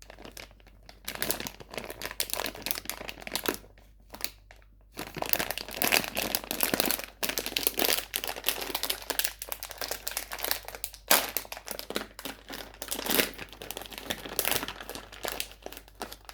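Sweet wrappers crinkling as they are handled, in irregular bursts with brief pauses.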